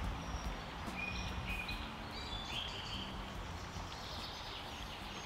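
Steady rushing of a shallow creek, with a few short high bird chirps about a second into it and on for the next couple of seconds.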